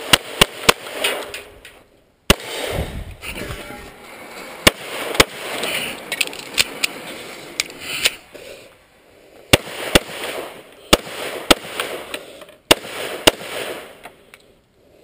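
A string of pistol shots from a 1911 during a timed course of fire: sharp cracks, mostly in quick pairs about half a second apart, with gaps of a second or more between pairs. The shots stop a little under two seconds before the end.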